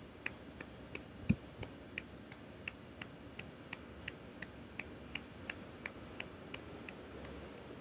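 A hand patting a cat's rump in a steady rhythm, about three light pats a second, with one heavier thump about a second in. The patting stops near the end.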